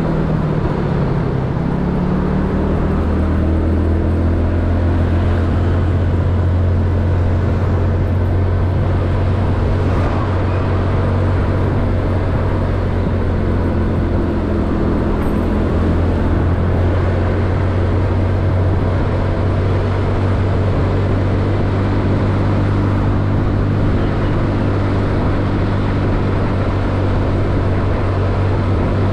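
Yamaha Mio scooter's single-cylinder four-stroke engine running steadily under way, a low hum over even road noise; its pitch rises over the first few seconds as it speeds up.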